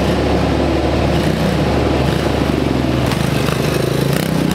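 Small pit bike's engine running as it is ridden, its pitch rising and falling with the throttle.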